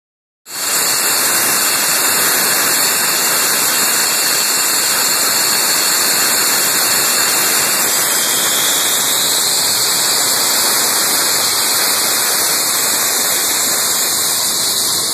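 F-15E Strike Eagle's twin turbofan engines running as the jet taxis past: a loud, steady rushing noise that starts about half a second in.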